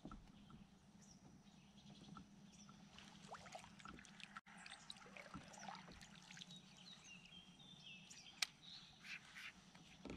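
Near silence on a calm lake: faint bird calls, with a few short chirps late on, and scattered light clicks and knocks from a fishing rod and reel being handled in a kayak. One sharper click comes near the end.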